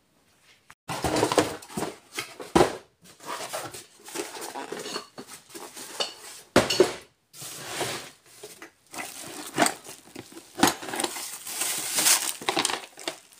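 Rummaging through a box of stored parts: hard objects clinking and clattering against each other in irregular handling noise, with a few sharper knocks.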